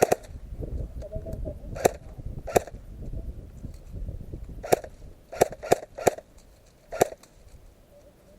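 Airsoft guns firing single shots: about eight sharp cracks at uneven intervals, two close together near the middle. A low rumble sits under the first few seconds.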